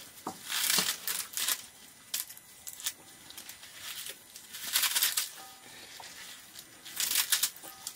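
Leafy greens being torn and snapped by hand over an aluminium pot. Crisp tearing and rustling comes in about four short bursts, with small clicks between them.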